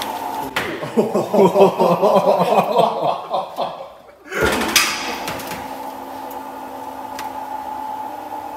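A man laughing for about three seconds, then a steady mechanical hum with a few held tones.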